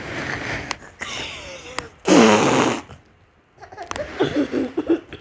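A child making fake fart noises with her voice: one loud, noisy one about two seconds in lasting under a second, with quieter ones before it and short voiced sounds near the end.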